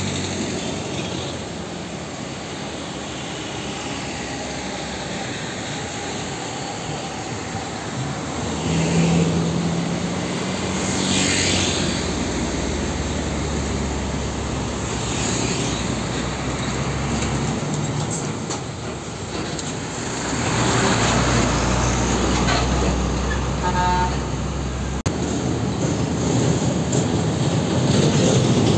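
Road traffic with diesel trucks passing: a loaded Hino Ranger truck's engine rumble grows as it approaches and passes, among cars and motorbikes. The engine is loudest in the second half.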